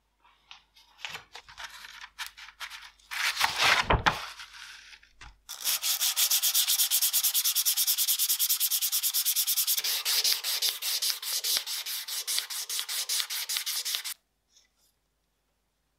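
Sandpaper rubbed by hand over the rusted metal frame of an Astra Cadix .38 Special revolver to take off the rust: a few slow, uneven strokes, then fast, steady back-and-forth sanding from about five seconds in that stops abruptly near the end.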